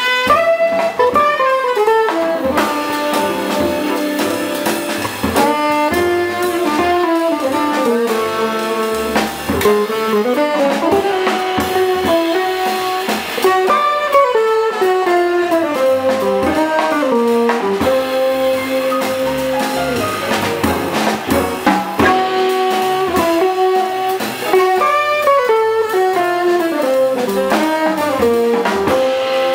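Jazz quintet playing: a saxophone carries a flowing melodic line over archtop electric guitar, piano, double bass and drum kit with cymbals.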